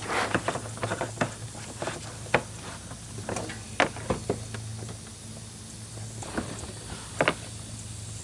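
Irregular clicks, taps and knocks from handling a gas can and the four-wheeler's fuel cap before refuelling, over a steady low hum.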